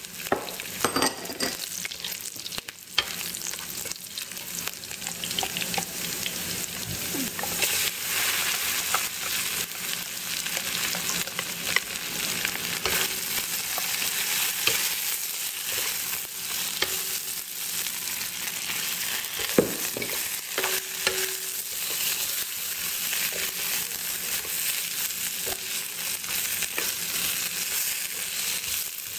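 Blue crab pieces with ginger and chili sizzling in hot oil in a pan, with scattered clicks and scrapes of the utensil as the food is stirred.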